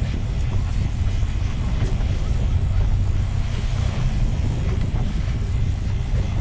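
Wind buffeting the microphone on a moving boat, a steady low rumble, with water rushing and churning past the hull.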